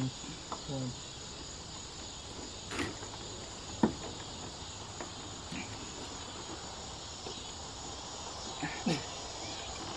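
Steady insect chorus, with a few light clicks and taps from hands working at a car's headlight and bumper; the sharpest click comes about four seconds in.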